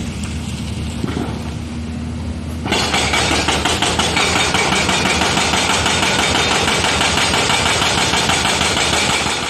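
LiuGong crawler excavator's diesel engine running, then a little under three seconds in its arm-mounted hydraulic attachment starts working. It breaks in suddenly with a loud, fast rattling mixed with a high steady tone.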